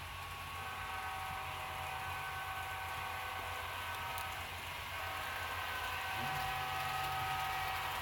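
Sound-equipped HO-scale model diesel locomotive's Tsunami 2 sound decoder playing a multi-chime air horn in two long blasts, the second starting about five seconds in, over a steady low diesel engine rumble that rises in pitch about six seconds in.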